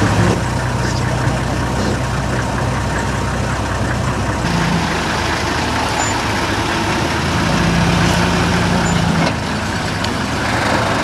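Game-drive vehicle's engine running at low speed, a steady rumble whose note changes about four and a half seconds in.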